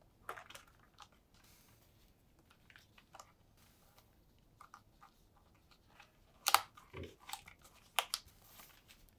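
Small plastic Strawbees connectors and cardboard being handled as the connectors are pushed through holes: scattered soft clicks, snaps and rustles, with a sharper click about six and a half seconds in and another about eight seconds in.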